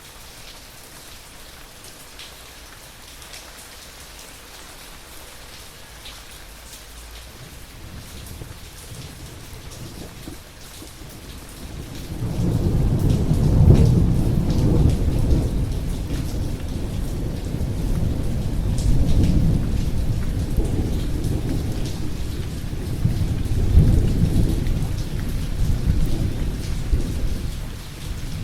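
Steady rain falling, with a long low rumble of thunder. The thunder builds from about a third of the way in, rolls on in several swells through the second half, and dies down near the end.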